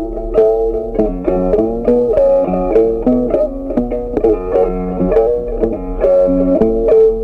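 Background music: a melody of quick plucked notes on a guitar-like string instrument.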